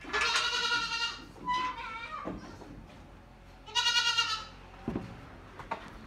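Goats bleating: two long, loud bleats about three and a half seconds apart, with a shorter, fainter bleat between them.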